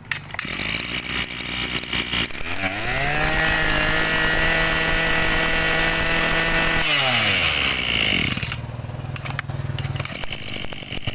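Maruyama 26cc two-stroke brush cutter engine idling, then revved up about two and a half seconds in. It is held at high revs for about four seconds and then let drop back to idle.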